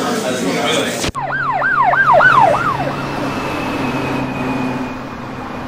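About a second in, talk with café background noise cuts off. An emergency-vehicle siren in fast yelp follows, sweeping up and down about five times in under two seconds, over the steady low hum of a car on the road.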